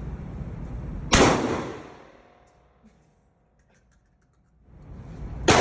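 Two single gunshots, each a sharp crack with a short fading echo: one about a second in, the other near the end.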